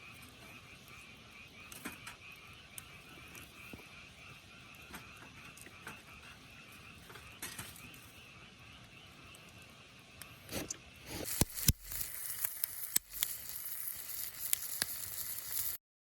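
A faint, steady pulsing chorus of calling animals. About eleven seconds in, loud sizzling of food frying in a pan over a campfire begins, with sharp pops and crackles, and cuts off abruptly near the end.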